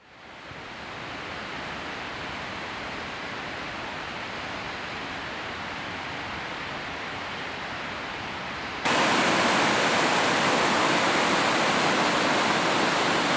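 Steady rush of a mountain creek's white water, fading in at the start and stepping up suddenly louder and brighter about nine seconds in.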